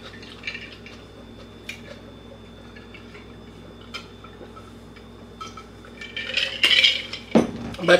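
A person drinking from a glass mason jar of iced drink: quiet swallowing with a few faint clinks of ice against the glass, then a louder burst of sounds near the end as the drinking stops.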